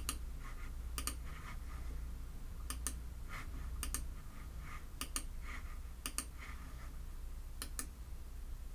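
Computer mouse button clicking, single clicks and quick pairs about once a second, over a faint steady hum.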